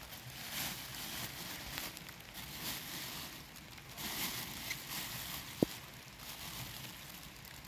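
Water splashing and sloshing in a plastic bowl as tomatoes are rinsed by hand, with a plastic bag crinkling. A sharp knock comes a little past halfway, as a tomato is set down in the bowl.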